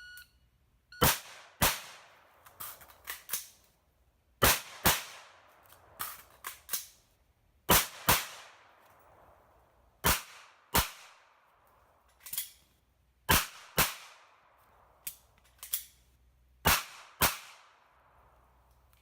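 A shot-timer beep, then twelve gunshots in six quick pairs a few seconds apart, two from each two-round magazine: rifle shots first, then pistol shots. Lighter clicks and clatter from the magazine changes fall between the pairs.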